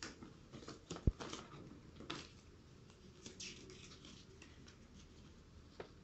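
Paper instruction leaflets being handled and folded, with light rustling and crinkling throughout. There is a single sharp thump about a second in, and a small click near the end.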